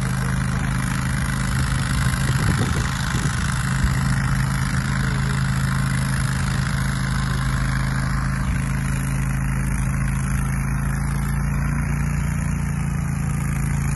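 Energreen RoboMINI remote-controlled mower's engine running steadily as the mower cuts long grass, a constant low drone.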